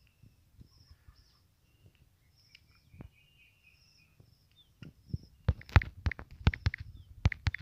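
Faint bird chirps in the background, then from about five seconds in a quick run of sharp taps from typing on a smartphone's touchscreen keyboard.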